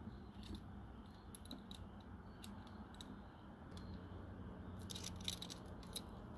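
Light, scattered metallic clicks and taps from a hand crimping tool and a metal spark plug wire terminal being handled, with a quick run of clicks about five seconds in, over a faint low hum.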